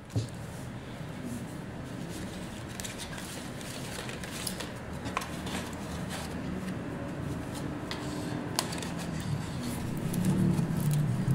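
Paper and card rustling as hands handle packaging and small zippered velvet jewelry cases, with a few light sharp clicks and taps.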